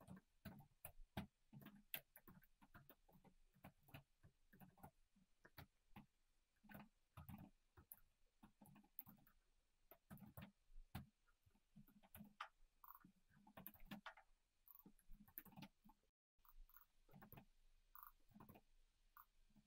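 Faint, irregular tapping of computer keyboard keys as code is typed, with a split-second gap of dead silence late on.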